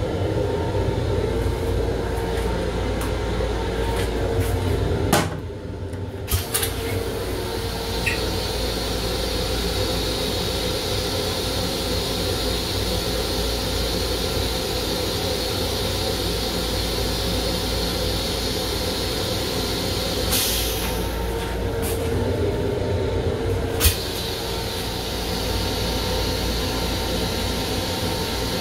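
Long Island Rail Road M7 electric railcar rumbling along, heard inside its restroom, while the toilet flushes. A sharp clunk about five seconds in, a steady hiss after it, a short rush around twenty seconds in and another clunk near the end.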